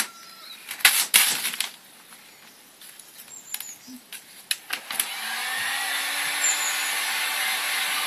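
A few sharp clicks and snaps, then a hand-held hot-air gun switched on about five seconds in. Its fan runs with a steady hiss and a low hum while it heats the vinyl wrap film to soften it.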